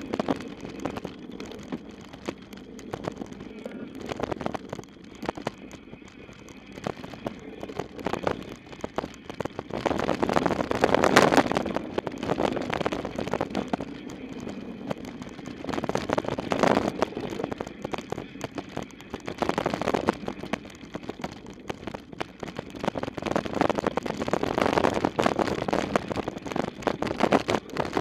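Mountain bike descending a dirt trail at speed: tyres rolling on loose dirt, with the bike rattling and knocking over bumps and wind rushing over the microphone, surging louder several times.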